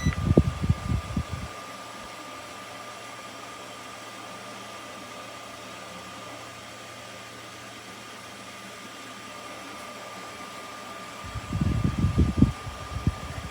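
Bladeless tower fan running steadily: an even airy hiss with a thin steady whine. Irregular low buffeting, like air on the microphone, for about the first second and a half and again near the end.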